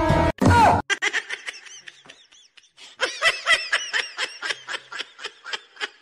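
A person laughing in quick, high-pitched giggles, several short bursts a second and strongest from about three seconds in, after a brief loud burst right at the start.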